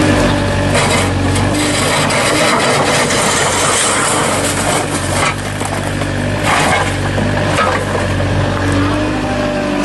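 Engine of heavy road-repair machinery running steadily, with a stretch of harsh, rough scraping noise through the middle.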